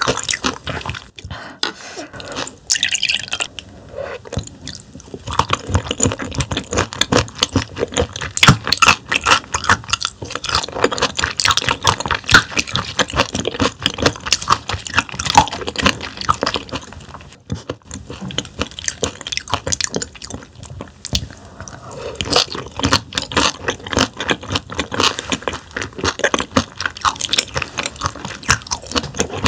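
Close-miked chewing of raw damselfish sashimi sliced thin with its bones in: wet, squishy mouth sounds with many quick crunches as the tough little bones are bitten through.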